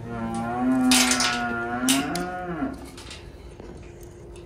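Cattle mooing: one long drawn-out call lasting about two and a half seconds, followed by a faint steady hum.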